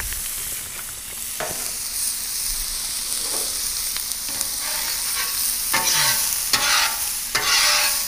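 Sliced sausage sizzling in oil on the hot steel top of a Blackstone four-burner griddle. A metal spatula scrapes across the griddle a few times, mostly in the second half.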